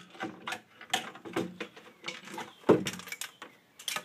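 Irregular clicks and knocks of a screwdriver and gloved hands against an LCD monitor's sheet-metal chassis and plastic housing during dismantling, with a heavier knock near the three-quarter mark.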